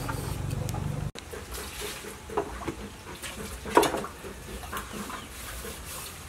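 A hand peeler scraping the skin off a ridged luffa gourd for about a second, then chickens clucking now and then, with one loud cluck near the middle.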